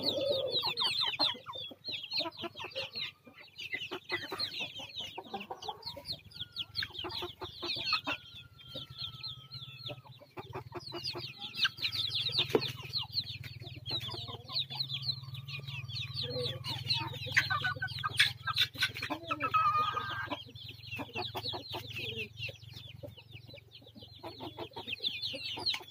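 Flock of young chickens cheeping continuously in rapid high chirps, with a few longer, level-pitched calls held for a second or two.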